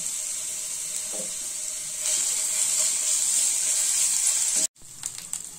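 Ginger and green chilli paste sizzling in hot ghee in a nonstick frying pan: a steady high hiss that grows louder about two seconds in. Near the end it cuts off for a moment and comes back quieter, with light scrapes of a wooden spatula stirring the paste.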